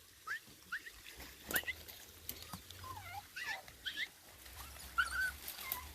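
Dog whining in short, high-pitched squeaks that rise or bend in pitch, scattered irregularly.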